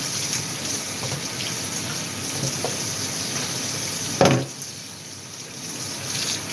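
Water running from a kitchen tap onto a pot being rinsed in a metal sink. About four seconds in there is one loud clunk, after which the water sound is quieter for a second or two.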